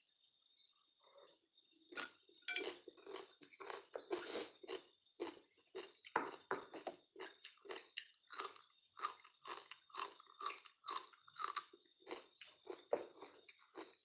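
A person biting and chewing crunchy food close to the microphone, with crisp crunches at about two to three a second. The crunching starts about two seconds in.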